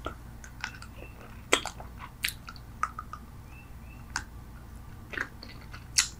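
Close-miked bubble gum chewing: wet mouth smacks and clicks of gum being worked, coming irregularly about one or two a second.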